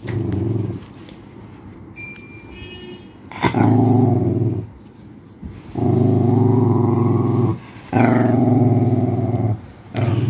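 Pomeranian growling in a run of long, low growls, each a second or two long with short breaks between, about five in all. It is a warning growl from a small dog guarding items it has stolen.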